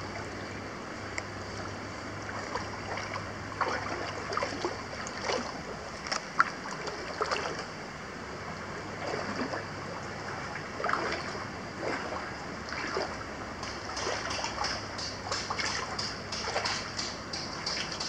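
Hot spring water running and trickling in a rock-lined open-air bath: a steady wash of flowing water with small irregular splashes, busier near the end.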